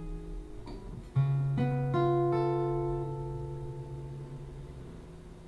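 Acoustic guitar played alone with no singing: a quiet ringing chord, then about a second in a new chord picked note by note, left to ring and slowly fade away.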